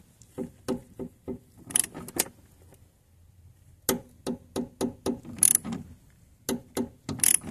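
Ratchet wrench on an extension clicking in short runs as it tightens the banjo bolt fitting on top of a car fuel filter, with a pause of about a second and a half partway through.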